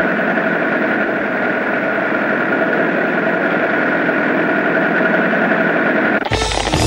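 Vintage motor truck's engine running steadily under way, a dense rattling drone with a steady whine over it. About six seconds in it cuts off abruptly and music starts, with rapid clattering.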